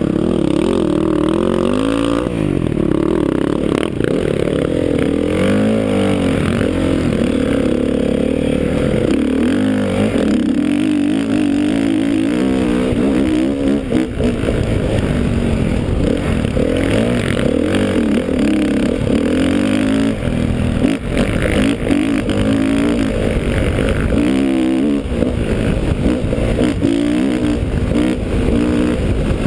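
Dirt bike engine revving and riding off, its pitch rising and falling again and again with throttle and gear changes, heard from the rider's own helmet.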